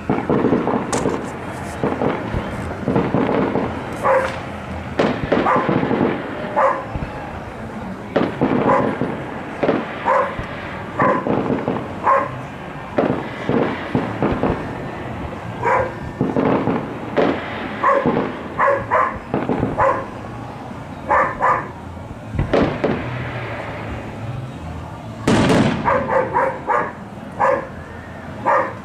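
A dog barking again and again, in short repeated barks, while fireworks go off with sharp bangs. The biggest bang comes near the end.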